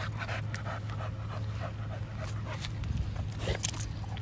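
Pit bull panting close by, a run of short repeated breaths.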